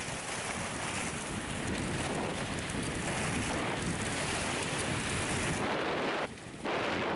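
Wind rushing over the microphone and skis hissing over packed snow during a downhill run, a steady noise that drops briefly about six seconds in.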